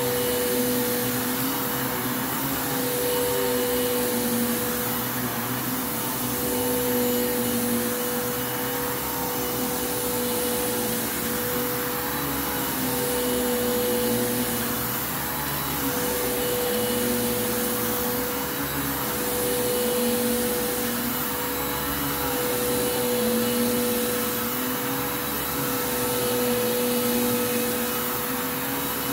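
Bissell Lift-Off Revolution upright vacuum cleaner running on a rug while pushed back and forth: a steady motor whine over rushing air, with a lower hum that wavers and swells gently every couple of seconds with the strokes.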